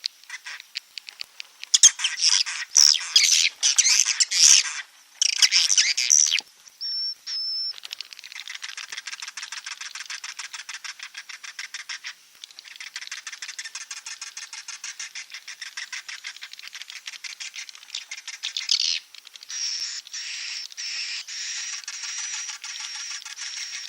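Edible-nest swiftlets chattering in rapid clicking trills: a swiftlet call recording of the roosting kind, played in swiftlet houses to lure the birds in to stay. Loud dense bursts come in the first several seconds, then a steady fast ticking chatter, with a thin high whistle-like tone running through the last few seconds.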